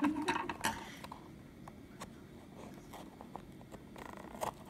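Small cardboard toy box handled in the hands: light rustling and scattered small taps and clicks, busiest in the first second and again near the end.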